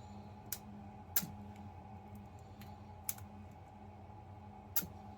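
Four sharp, irregularly spaced metallic clicks of a lock pick and tension wrench working the pins of a Master Lock 140 padlock during single-pin picking, over a steady low hum. The picker soon afterwards says he is oversetting the pins.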